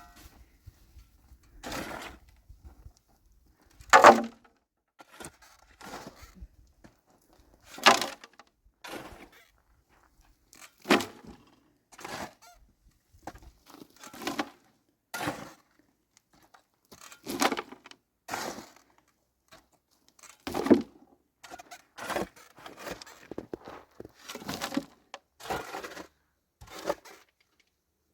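A long run of irregular knocks, about one every second or two, the loudest about four and eight seconds in.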